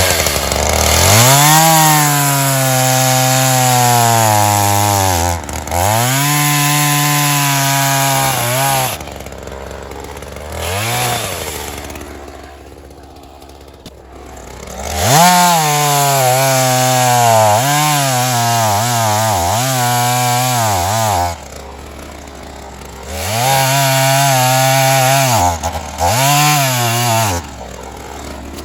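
Ryobi two-stroke gas chainsaw revved to full throttle in three long bursts, its pitch sagging and wavering as the chain cuts through wood, with a short blip between the first two and the engine falling back to idle between cuts.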